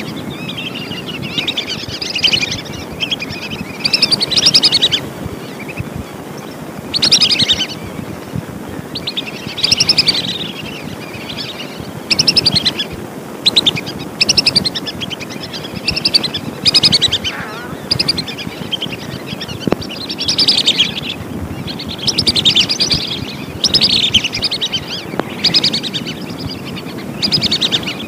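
Whistling ducks (belibis) calling: repeated high, whistled chattering phrases, one every second or two, over a steady background hiss.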